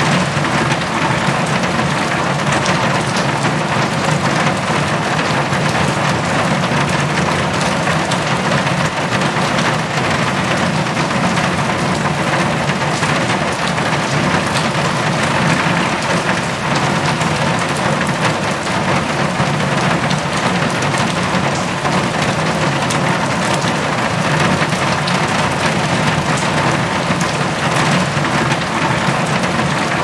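Heavy rain falling on a metal roof: a steady, dense hiss of rain dotted with countless sharp little ticks of drops hitting the metal.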